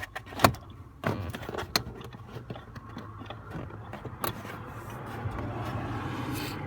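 Scattered sharp clicks and knocks of hand tools and parts being handled at a car's steering column during an ignition-switch replacement, over a low steady hum, with a broad rushing noise swelling near the end.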